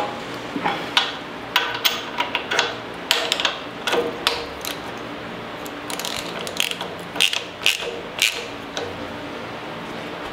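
Irregular short runs of metallic clicks from a wrench tightening an engine temperature sender, its threads coated in sealant, into the marine diesel's cooling system.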